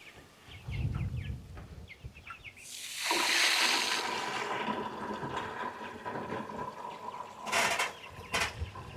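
Water rushing out of a hose into a container to fill it, starting suddenly about three seconds in and then running on as a steady hiss with a faint ringing tone.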